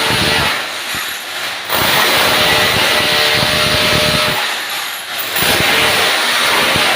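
A loud power tool running with a dense, rapid rattle, easing off briefly twice.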